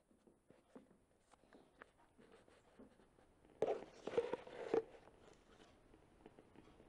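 Paper pages of a magazine calendar being handled and turned: faint scattered rustles and clicks, with a louder crinkling rustle lasting about a second near the middle.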